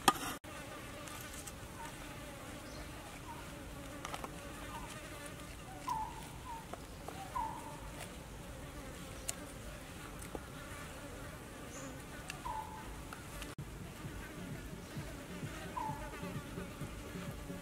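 Flying insects buzzing steadily, with a few short chirps and the odd faint click scattered through.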